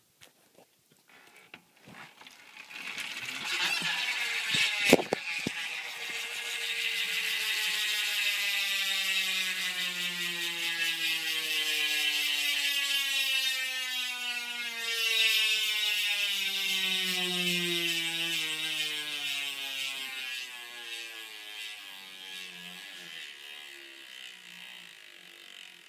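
Chris King rear hub freewheel buzzing as a hand-spun BMX wheel coasts, its pitch falling steadily as the wheel slows and the sound fades. A sharp knock comes about five seconds in.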